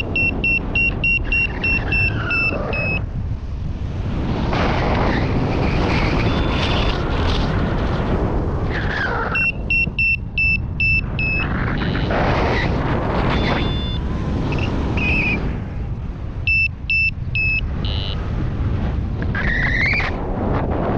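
Wind rushing over the microphone in flight, with a paragliding variometer beeping in runs of about three even beeps a second. The beeping runs, near the start, around the middle and briefly later on, signal that the glider is climbing in lift.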